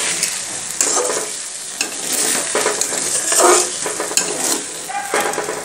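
A spatula stirring and scraping through pointed gourds and a thick cashew-and-milk paste in a pan, in irregular strokes over a steady sizzle of the cooking masala.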